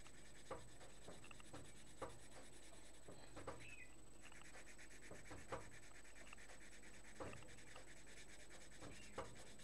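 Coloured pencil rubbing and scratching faintly on paper as a drawing is shaded in, with a few soft ticks scattered through.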